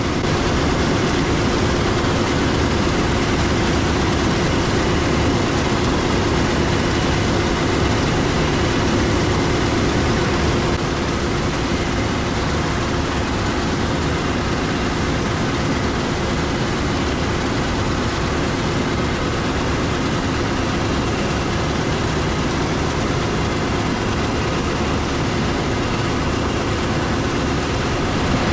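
Heavy diesel harvest machinery running steadily: a constant engine drone with a steady hum.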